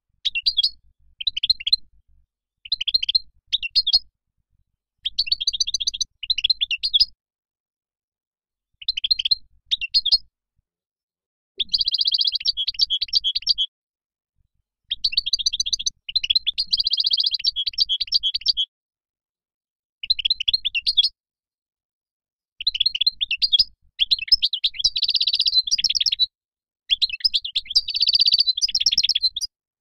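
European goldfinch singing: quick phrases of rapid, high twittering notes, each a second or two long, broken by short pauses.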